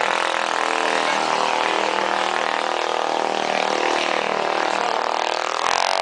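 Small racing engines, a 386cc and a 486cc, running and being revved, their pitch wavering up and down, with a quick climb in revs near the end.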